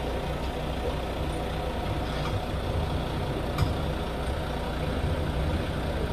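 A crane lorry's diesel engine running steadily at a low rumble while its mounted crane holds a load. There is one sharp click about three and a half seconds in.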